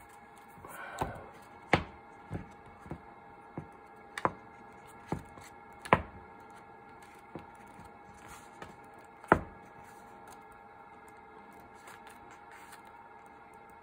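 Pages of a paperback book being opened and turned by hand: a short rustle as the cover opens, then a string of sharp paper snaps and flaps as pages fall over. The loudest snaps come about 2, 6 and 9 seconds in, and they die away after about 10 seconds.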